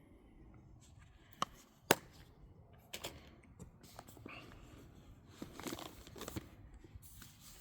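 Drone-kit packaging being handled: two sharp clicks about a second apart, then several seconds of crinkling and rustling as items are taken out.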